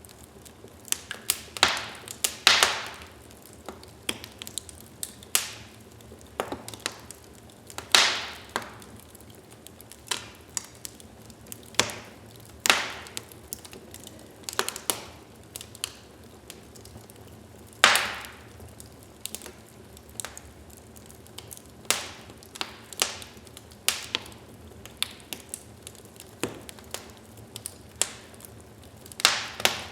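Wood fire burning in a fireplace, crackling and popping at irregular intervals over a low steady hiss, with a few louder snaps about 2, 8, 13 and 18 seconds in.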